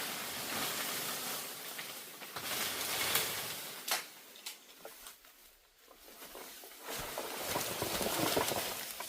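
Rustling and crackling handling noise, with a few sharp clicks about three to four and a half seconds in and a denser stretch of rustling near the end.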